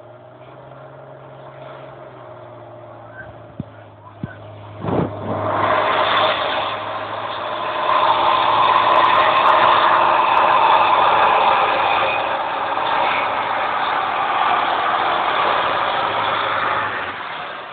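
David Brown tractor's diesel engine pulling a weighted sled: a steady, moderate note at first, then opened up hard under heavy load about five seconds in and held loud to the end. A few sharp knocks come just before the engine is opened up.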